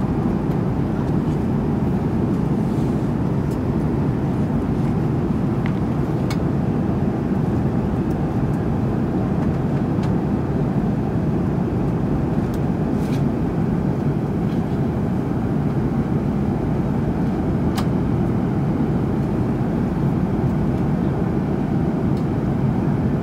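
Steady airliner cabin drone in flight: jet engine and airflow noise heard from a passenger seat, a low, even rush, with a few faint clicks.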